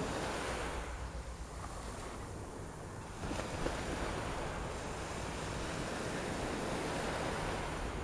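Surf washing up a sandy beach, a steady rush of water that swells louder about three seconds in, with wind buffeting the microphone.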